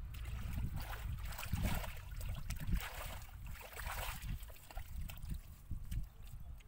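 Bare feet squelching and sloshing through wet, watery mud in uneven steps.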